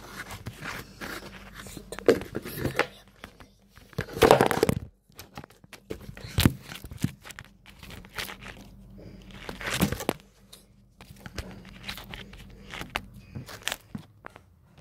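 Slime being squeezed and worked by hand: irregular crackles, pops and squelches, louder about 4 and 10 seconds in.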